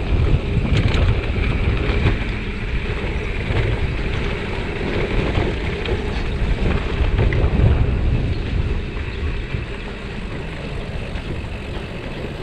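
Wind buffeting the microphone of a chest-mounted camera on a moving bicycle, with the tyres rolling over a narrow concrete path and occasional light clicks from the bike.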